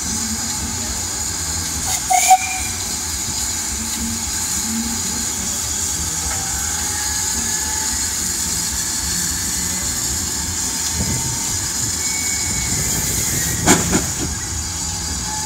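Steam locomotive GWR 5600 class No. 5619 letting off steam: a steady loud hiss of escaping steam, with two sharp knocks about two seconds in and near the end.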